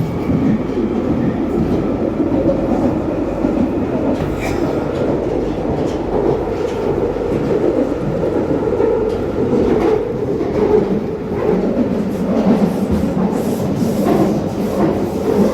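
London Underground Northern Line train (1995 Stock) running at speed through a deep-level tube tunnel, heard from inside the carriage: a loud, steady rumble with occasional clicks from the wheels on the track.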